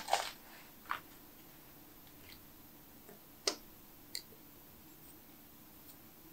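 Stainless-steel cookie cutter and fingertips tapping and clicking on a silicone baking mat while cutting shapes from rolled ginger cookie dough. There are a handful of short, soft clicks, two at the start, one about a second in, and the sharpest one about three and a half seconds in.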